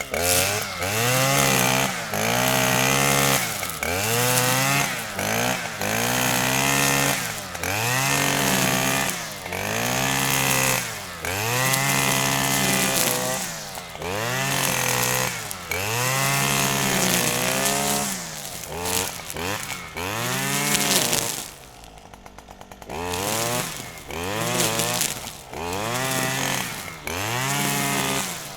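Grass trimmer cutting grass, its motor speeding up and slowing down over and over, about every two seconds. Near the end it drops briefly to a much quieter low run before picking up again.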